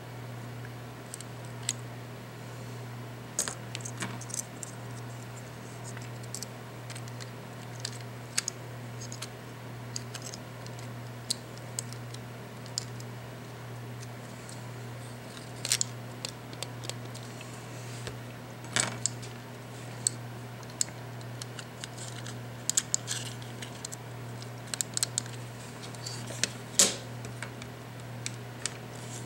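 Small, sharp clicks and taps at irregular intervals as the parts of an opened computer mouse are handled and fitted: circuit board, scroll-wheel assembly and plastic shell. A steady low hum underlies them.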